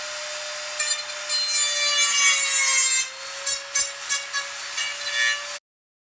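Power tool running with a steady motor whine, cutting with a harsh scraping from about a second in; the motor pitch dips briefly under load, then the cutting comes in short, repeated passes.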